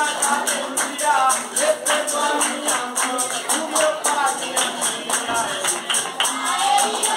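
Capoeira roda music: a berimbau struck in a steady rhythm, with a man singing over it and hand-clapping.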